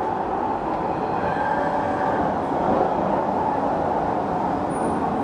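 Interior noise of a London Underground 1996-stock Jubilee line train running through the tunnel: a steady rumble with a faint whine over it.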